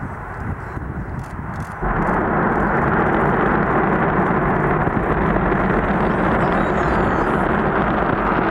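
Soyuz rocket engines at launch. A quieter rushing noise steps up abruptly about two seconds in to a loud, steady, deep roar that holds as the rocket lifts off and climbs.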